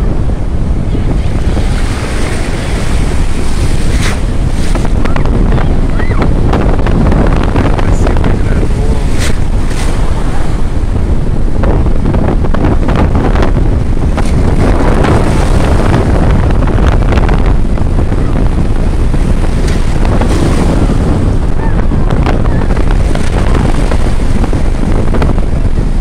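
Storm surf on the Sea of Azov: waves breaking and foam washing through the shallows, with wind buffeting the microphone throughout.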